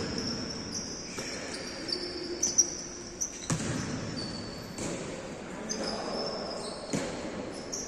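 Basketball game in a large gym: a basketball bouncing on the court a few times, with sneakers squeaking on the floor.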